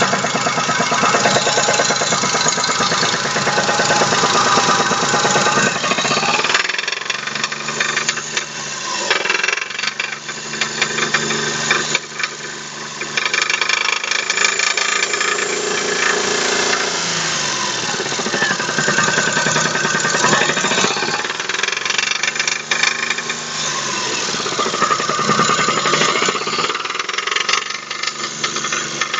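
Daewoo Matiz 0.8 three-cylinder engine running with a loud, rapid knocking; engine speed rises and falls a few times. The knock comes from spun crankshaft main bearings after the engine ran without oil once the front crankshaft seal was pushed out.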